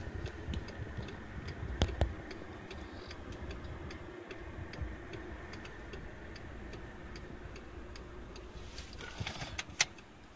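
Car indicator relay ticking steadily, about three ticks a second, over a low engine rumble from a stopped car. A sharper knock comes about two seconds in and another near the end.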